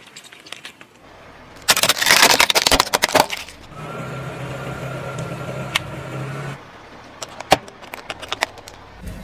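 A car tyre rolling slowly over small objects on asphalt and crushing them. A loud crackling crunch comes about two seconds in. A steady low hum follows in the middle, and scattered sharp cracks and pops come near the end.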